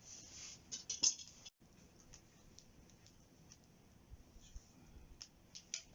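Wood campfire crackling, with scattered sharp pops and snaps. A louder flurry of crackling and hiss comes about a second in.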